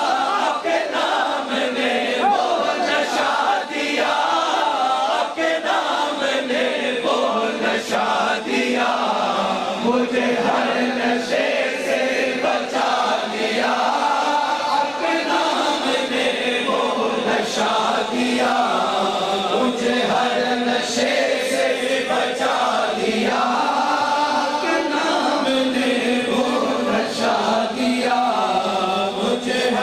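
A crowd of men chanting a naat, an Urdu devotional song in praise of the Prophet Muhammad, together in unison, with lead singers on microphones.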